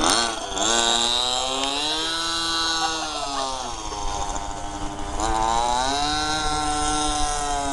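Radio-controlled racing boat's engine running at high revs. Its pitch climbs at the start, drops about three and a half seconds in, then climbs again about five seconds in and holds high.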